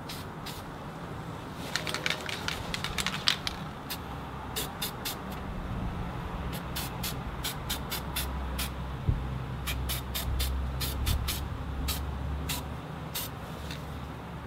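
Aerosol can of spray-on gasket sealant hissing in many short spurts, a quick cluster about two seconds in and then spaced bursts, as the sealant is coated onto an engine crankcase gasket surface. A low rumble runs underneath from about four seconds to twelve seconds.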